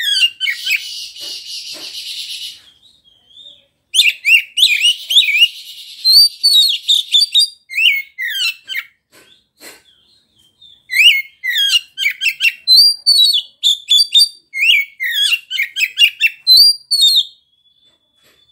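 Oriental magpie-robin (kacer) singing loudly in rapid phrases of sharp whistled notes, mixed with buzzy rattling passages, with a couple of short pauses. A thin, steady whistle is held near the end.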